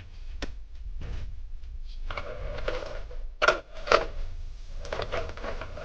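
Parts of a power tool being handled on a workbench: rustling and a few sharp clicks, two of them close together about three and a half seconds in, over a faint low hum.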